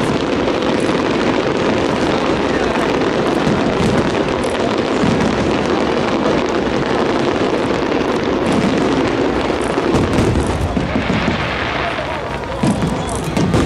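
Fireworks display going off continuously: a dense run of bangs and crackling bursts, with a crowd's voices underneath.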